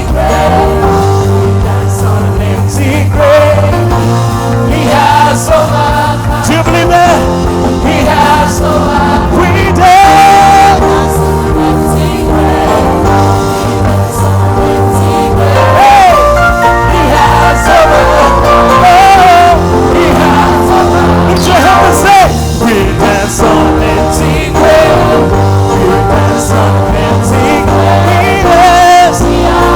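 Loud worship band music with drums and bass, a melody line sliding between notes above it.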